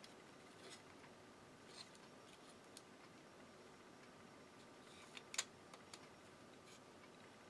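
Near silence, with a few faint small clicks of the walkman's plastic and metal cassette mechanism being handled; the sharpest is a pair of clicks about five and a half seconds in.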